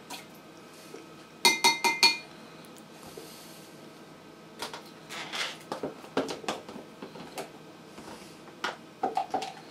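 Glassware clinking and knocking at a kitchen sink as a glass bowl of water and a small feeding bottle are handled: four sharp, ringing clinks about one and a half seconds in, then scattered softer taps and knocks.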